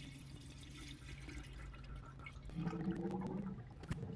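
Coolant being poured into a car radiator's filler neck: faint liquid pouring and filling. About two-thirds of the way through, a steady low hum starts suddenly, with a click shortly after.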